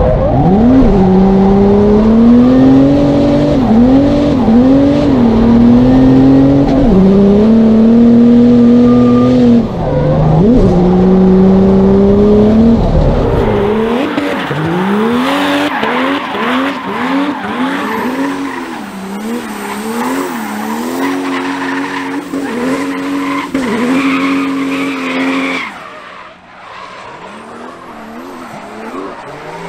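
Mercedes OM648 3.2-litre turbodiesel straight-six in a W203 drift car revving hard, first heard from inside the cabin with a heavy rumble, holding revs between sudden drops at the gear changes. From about halfway it is heard from trackside, the revs rising and falling in quick repeated swings over tyre squeal as the car drifts. The sound dips about four seconds from the end, then the engine rises again.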